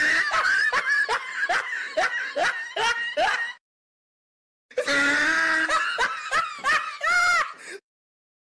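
Person laughing in rapid repeated snickers for about three and a half seconds, then, after a sudden dead stop of about a second, another burst of laughter.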